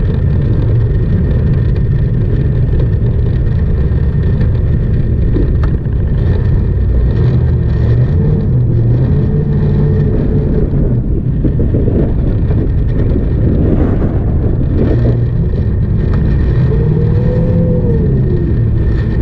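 Jet boat under way, its inboard engine running steadily with a constant low rumble and rushing water and wind noise. The engine pitch briefly rises and falls a couple of times, about halfway through and near the end.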